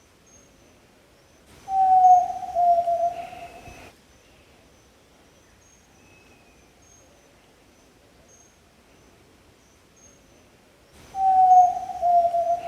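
Yellow-legged tinamou (jaó-do-sul) calling twice, about nine seconds apart: each call is a loud, low, hooting whistle of about two seconds that falls slightly in pitch. Faint high ticking sounds between the calls.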